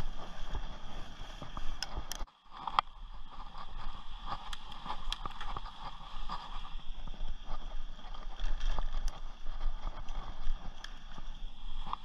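Rocky Mountain Thunderbolt mountain bike rolling over a dirt trail: a steady low rumble from the tyres with frequent rattling clicks from the bike. The sound drops out for a moment about two seconds in.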